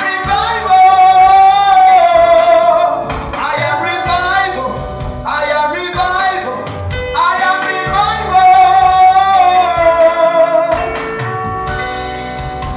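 Worship song: a singer holding long, wavering notes in phrases a few seconds long over instrumental accompaniment. The voice stops near the end, leaving the instruments playing.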